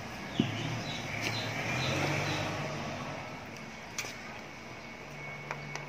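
Sisig being scooped from a stainless steel bowl into plastic takeaway containers: a sharp knock about half a second in, then a few light clicks of spoon and plastic. Under it a low hum swells about two seconds in and fades.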